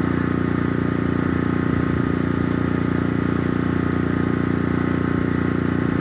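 An engine running steadily at idle, an unchanging low hum.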